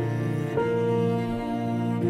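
Slow background music of long held low notes, a new note coming in about half a second in.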